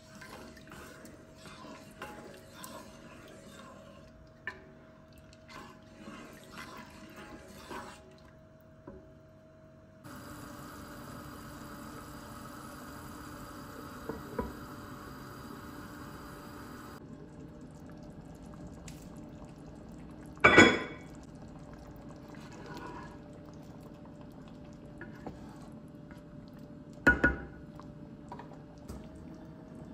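Wooden spoon stirring thin lentil soup in a pot, with soft sloshing and light scrapes. Then a steady low hiss with a couple of small knocks as a lid is set on the pot, and later two sharp clanks a few seconds apart.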